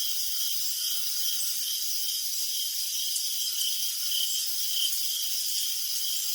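Crickets chirping: short, high-pitched chirps repeating about twice a second over a dense, steady high trill from many insects.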